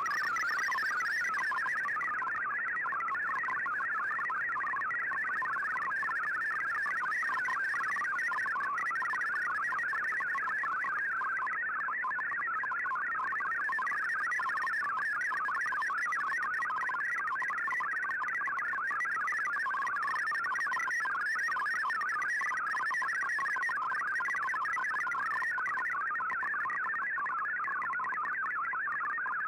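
MFSK digital text signal from a shortwave broadcast, received on an Icom IC-R8600: a steady warble of rapidly hopping tones packed into a narrow band, running without a break.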